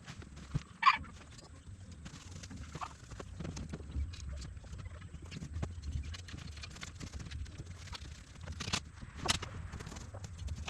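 Chickens in a metal coop, with scattered short clucks and knocks over a low steady rumble.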